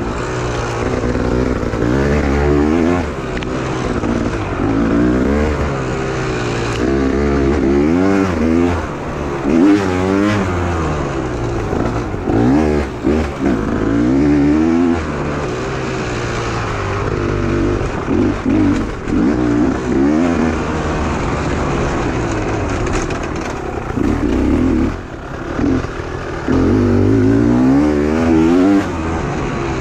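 Beta 300 two-stroke enduro motorcycle engine revving hard under load, its pitch rising and falling over and over as the throttle opens and closes, with a few brief drops where it comes off the throttle.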